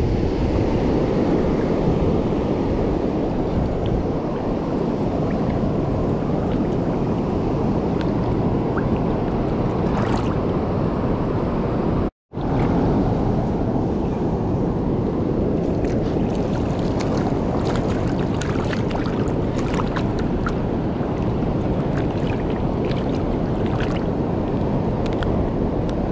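Steady rushing noise of wind buffeting the microphone over the sound of moving river water, with a brief drop-out about twelve seconds in and scattered light clicks in the second half.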